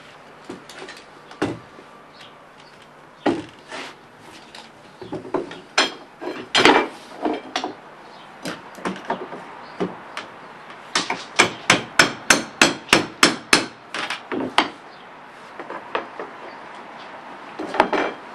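Hammer striking wood: scattered single blows, then a quick even run of about a dozen strikes a few seconds after the middle, as when driving nails into porch floorboards.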